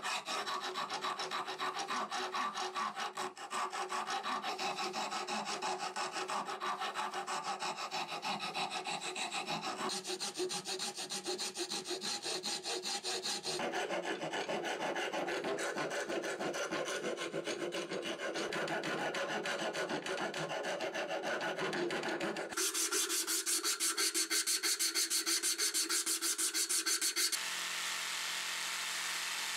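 Flat hand file rasping back and forth across a wooden handle blank clamped in a vise, stroke after stroke. About three-quarters of the way in, a power tool takes over, louder, with a fast, even buzz. Near the end it settles to a steadier motor hum.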